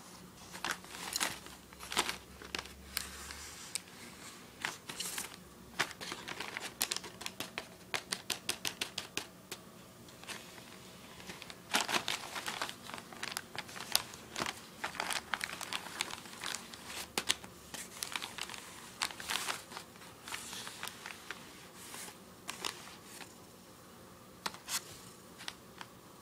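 A drumstick tapping and clattering as a cat bats at it: irregular sharp taps, some in quick runs of several a second, growing sparse near the end.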